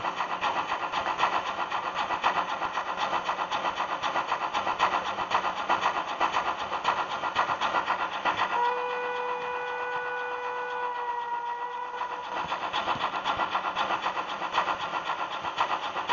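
Sound decoder of a model BR 80 steam tank locomotive playing rhythmic exhaust chuffs, about three a second, as the model runs. About halfway through, a steady steam-whistle tone sounds for some three seconds, then the chuffing resumes.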